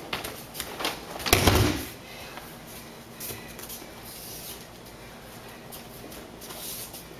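A judoka thrown onto the judo mat lands with a loud thud about a second in, lasting about half a second. After it come lighter scattered rustles and footfalls of bare feet and gi cloth on the mat.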